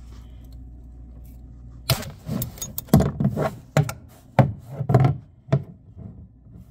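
Ratchet with a T45 Torx bit working the oil drain plug loose on an Audi Q7's oil pan. From about two seconds in there is an irregular run of sharp metallic clicks and knocks from the ratchet and tool, a few a second, over a low steady hum.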